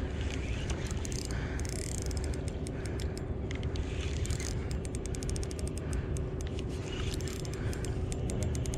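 Fishing reel being worked during the fight with a hooked queenfish: runs of rapid mechanical clicking and ratcheting, over a steady low rumble.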